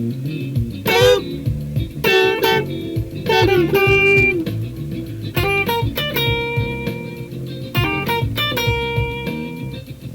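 Funk music: an electric guitar plays a lead line with several bent, gliding notes over a bass line.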